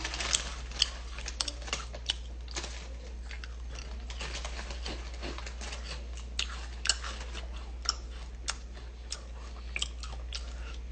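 A person chewing close to the microphone, with irregular crunching clicks.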